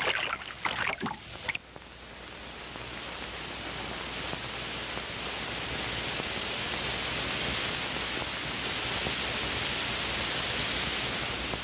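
A steady, even hiss with no distinct events, swelling slowly over the first few seconds and then holding level.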